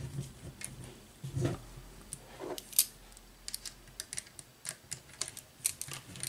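Irregular light clicks and taps of hard plastic RC car parts being handled, and a small screwdriver turning a step screw into the plastic suspension arm mount.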